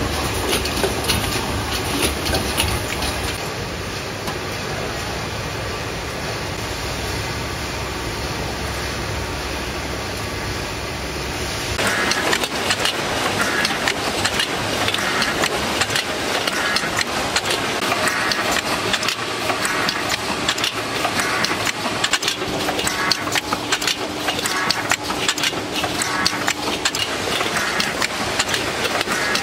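Tinplate can production line machinery running, with a dense rapid clatter of metal cans knocking along conveyors and through the forming machines. The sound changes abruptly about twelve seconds in, turning brighter and more rattly.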